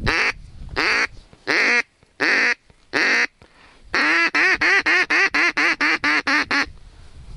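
Duck call blown in quacks: five long quacks spaced evenly, then a quick run of about a dozen shorter quacks that stops abruptly, the sequence hunters use to bring passing ducks in to the blind.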